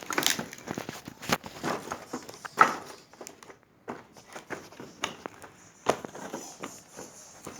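Footsteps crunching over sand and fallen stones on a cave floor, uneven steps with scattered scrapes and clicks.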